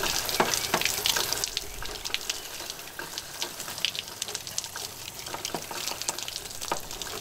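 Water spraying from the handheld sprayer of a bus-side exterior shower box, splattering over a hand and dripping onto the ground. The spray is stronger for about the first second and a half, then lighter.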